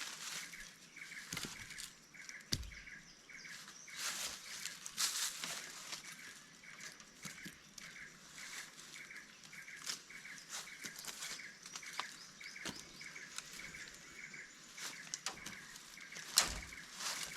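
Forest ambience: a bird's short chirps repeat steadily throughout, with patches of rustling and a few sharp knocks, the loudest near the end.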